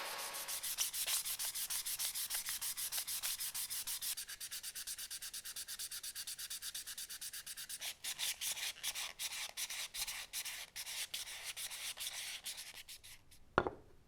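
Hand sanding: abrasive paper rubbed back and forth in quick, even strokes, about five a second, dying away shortly before a single knock near the end.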